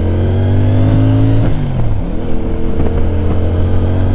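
CFMoto 450 CL-C's parallel-twin engine pulling under load as the bike is ridden. Its pitch climbs steadily, falls sharply at a gear change about one and a half seconds in, then climbs again.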